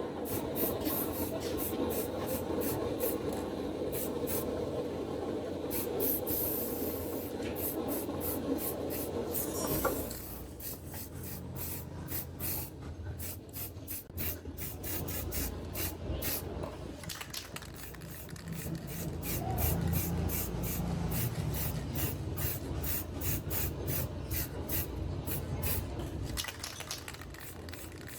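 Rapid repeated rubbing or filing strokes on the plastic of a broken car tail light, as the repair is worked smooth. About ten seconds in the sound turns lower and duller.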